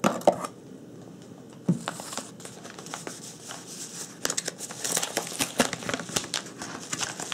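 Padded paper mailer envelope being handled and opened, paper crinkling and tearing in irregular crackles. A soft knock comes near the two-second mark, and the crinkling grows busier from about four seconds in.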